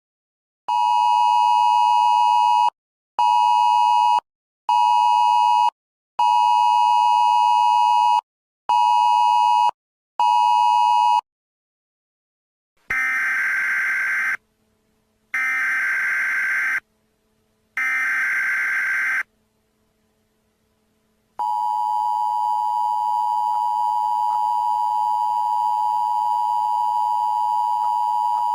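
Emergency Alert System tones: first six steady beeps of uneven length, then three short screeching data bursts of a SAME header, then the long steady two-tone EAS attention signal.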